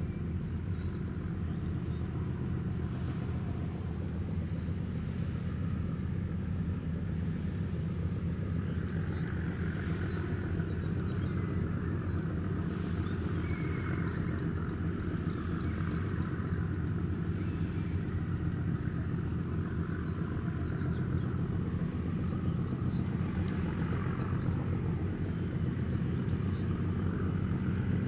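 Steady low rumble of the passing YOT-01 oil tanker's engine across the water, with faint, scattered high chirps over it.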